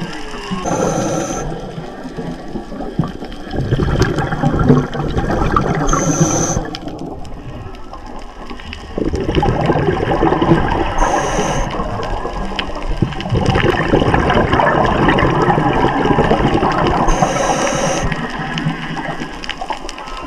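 Whale song heard underwater, mixed with a scuba diver's breathing: a short high regulator hiss about every five seconds, and a long loud rush of exhaled bubbles after each.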